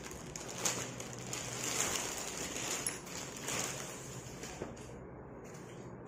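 Clear plastic packaging crinkling and rustling as hands pull a folded garment out of it, dying down to a faint rustle after about four and a half seconds.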